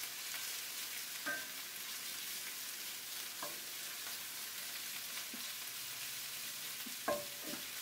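Onion, red bell pepper and grated garlic sautéing in oil in an enamelled pan: a steady sizzle, with a wooden spoon stirring through the vegetables and knocking against the pan a few times.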